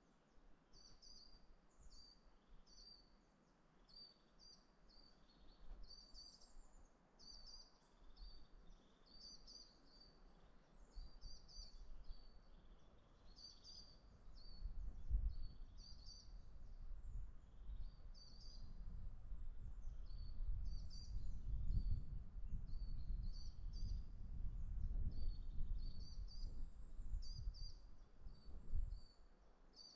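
Small songbirds singing, repeating short high phrases over and over. From about halfway in, a low, uneven rumble builds up under the song and stops shortly before the end.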